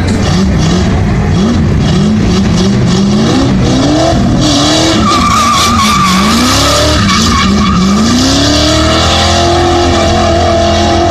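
Ford Mustang doing burnout donuts: the engine revs rise and fall again and again as the rear tyres spin. A wavering tyre squeal comes in the middle, and the revs are held high near the end.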